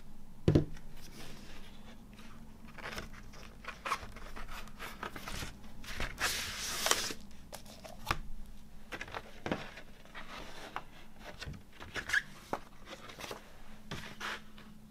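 Hands handling a vinyl LP's cardboard jacket and large printed paper insert on a wooden table. There is a thump about half a second in, then paper and card sliding and rustling, loudest in a swish about six seconds in, with light taps and clicks throughout.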